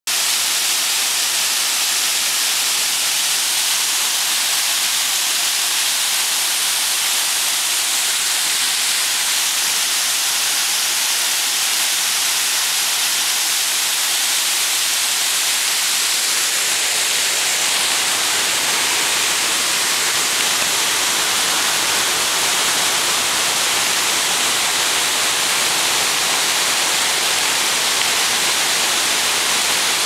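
Steady rushing of a waterfall, water pouring over a curved weir into the pool below. About halfway through the rush becomes fuller and deeper.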